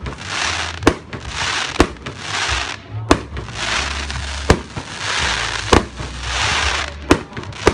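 Fireworks display: sharp bangs of shells bursting about every second or so, with long stretches of dense crackling hiss between them.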